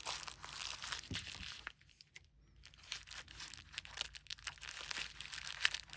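Packaging being handled: plastic and paper crinkling and rustling with small clicks and taps, with a short lull about two seconds in.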